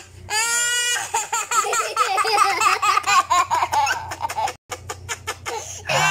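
Toddler laughing hard: a high squeal, then a long run of quick, breathless giggles, and another squeal near the end.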